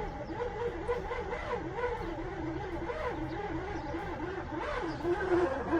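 Starter motor of a 1995 BMW 750iL V12 cranking, a whine that wavers up and down a couple of times a second and sounds weird; the owner suspects the battery is too weak to turn the engine properly.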